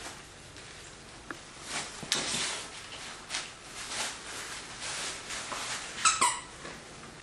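A terrier chewing a squeaky plush toy, the squeaker going off in a string of short squeaks, the loudest near the end.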